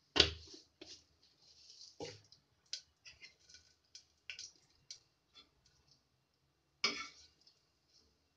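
Cumin seeds and bay leaves crackling and popping in hot mustard oil in an open pressure cooker: irregular small pops over a faint sizzle, with a louder sharp pop just after the start and another about seven seconds in.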